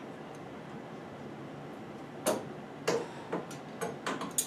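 A wrench clicking against a brass compression fitting as it is being tightened. After a quiet first two seconds come about six short sharp metal clicks.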